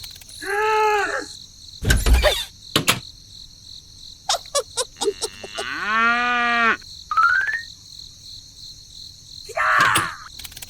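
Cows mooing in several short calls, the longest about six seconds in, over a steady chirping of crickets. A heavy thud comes about two seconds in, and a quick run of clicks near the middle.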